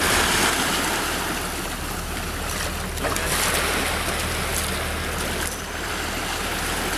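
Shallow sea water washing over a stony shore, with a steady low hum underneath.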